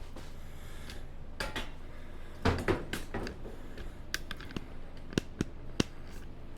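Scattered clicks and knocks of a camera being handled and moved to a new position, with a few sharp single clicks in the second half.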